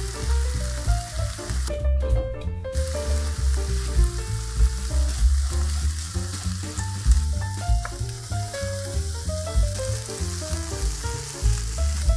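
Food frying in a pan with a steady sizzle that breaks off briefly about two seconds in, over background music with a pulsing bass line.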